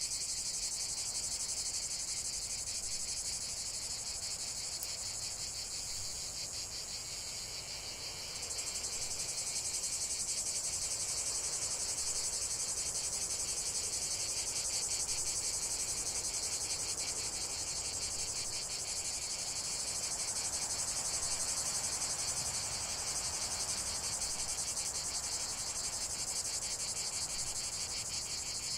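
Dense chorus of insects chirping, a steady high-pitched trill of rapid pulses that grows a little louder about eight seconds in.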